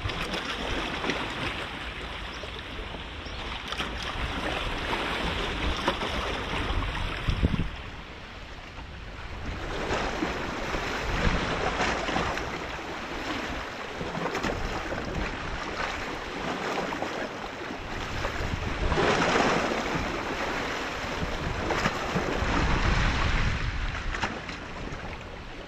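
Wind buffeting the microphone in gusts, a rushing noise with a low rumble that swells and fades every several seconds, over water moving against rocks.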